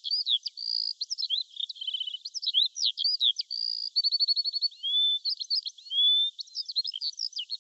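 A songbird singing a varied run of chirps, quick trills and rising whistles, with no low end to the sound, so it comes across thin.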